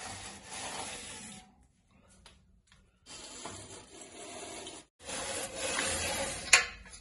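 Long bristle radiator brush being worked up and down between the fins of a steel panel radiator, its bristles scraping dust off the metal. It comes in three stretches with short quiet breaks, and a single sharp knock near the end.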